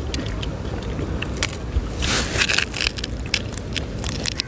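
Crisp deep-fried fish being broken apart by hand and crunched in the mouth: scattered short crackles and clicks, densest about two seconds in. Wind rumbles on the microphone underneath.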